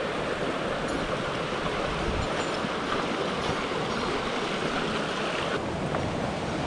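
Mountain stream water rushing, a steady, even noise with no break.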